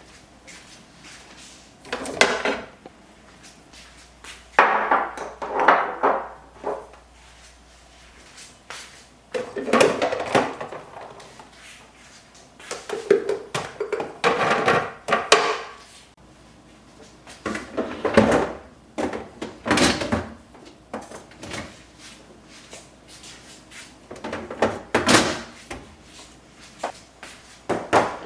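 Plastic refrigerator drawers and shelves sliding out and in, with containers being handled: a series of scraping, sliding and knocking sounds that come in bursts every few seconds.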